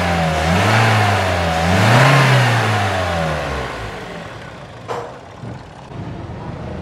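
Toyota Corolla's four-cylinder VVT-i petrol engine revved in two blips, the pitch rising and falling, then settling back to a steady idle. A short click about five seconds in.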